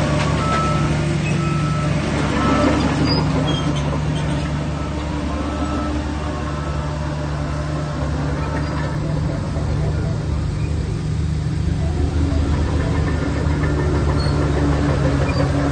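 Diesel engine of heavy earthmoving machinery running steadily under load, with a faint high tone that comes and goes about once a second in the first few seconds.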